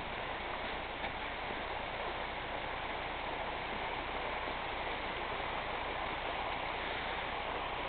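Steady rush of a rocky mountain stream, with a single light knock about a second in.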